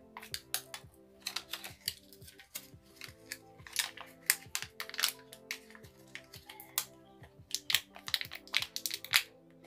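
Stiff plastic blister packaging crinkling and clicking in irregular bursts as it is handled and pried open to get at button-cell batteries. Faint background music runs underneath.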